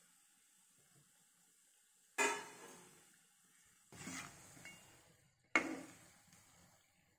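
Perforated steel skimmer knocking against a steel kadai three times, about a second and a half apart, starting about two seconds in, over faint frying of pieces in hot oil.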